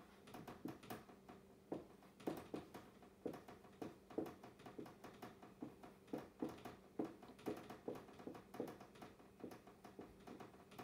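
Dry-erase marker writing on a whiteboard: many short, quick strokes, several a second, over a faint steady hum.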